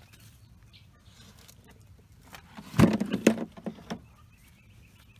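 A load of compost dumped from a container into a wire potato tower: a sudden loud rush and thump a little under three seconds in, dying away over about a second.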